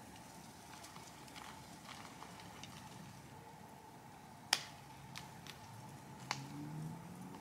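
Quiet outdoor background with a few scattered sharp clicks and snaps, the loudest about four and a half seconds in, and a faint low hum rising near the end.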